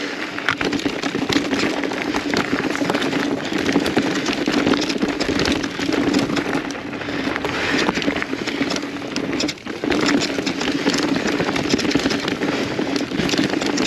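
Mountain bike rolling down a dirt trail: tyres crackling over dirt and gravel, with a steady run of small clicks and knocks from the bike rattling over the ground.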